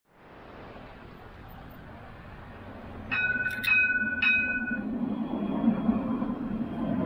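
Alstom Citadis 405 tram's warning bell struck three times in quick succession, each strike ringing on. Afterwards the low running rumble of the tram grows louder as it comes closer.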